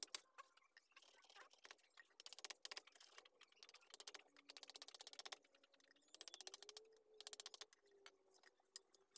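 Several bursts of rapid, light tapping, many strokes a second, as a small blade chops rows of shallow nicks into a wooden board.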